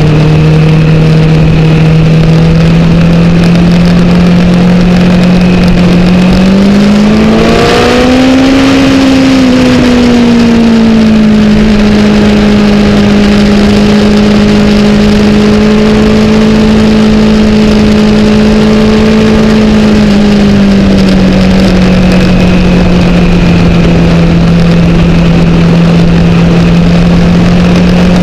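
Inline-four engine of a 2008 Honda CBR1000RR sport bike under way, with steady wind noise. The engine note rises as the bike accelerates about seven seconds in, settles a little lower and holds, then drops slightly about twenty seconds in.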